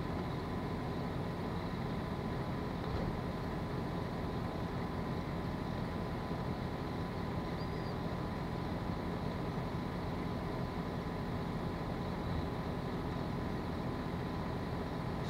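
Steady outdoor background noise with a constant low hum and a faint high-pitched whine.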